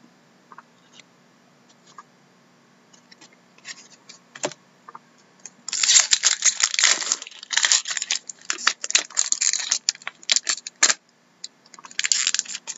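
Foil wrapper of a hockey card pack crinkling and tearing as it is opened: a dense, loud crackle that starts about six seconds in, stops briefly near eleven seconds and comes back near the end. Before it there are only a few faint clicks of cards being handled.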